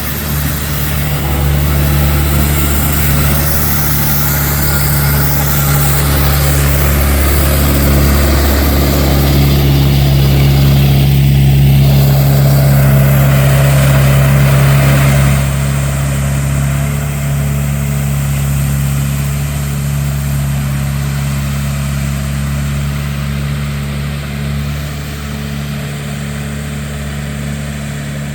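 A heavy engine running steadily with a low hum, dipping slightly in pitch about nine seconds in and easing off a little after about fifteen seconds.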